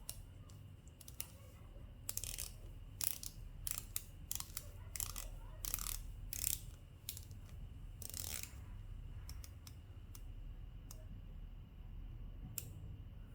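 Unidirectional rotating bezel of a Victorinox Journey 1884 stainless-steel watch being turned by hand, giving faint ratcheting clicks at an uneven pace throughout.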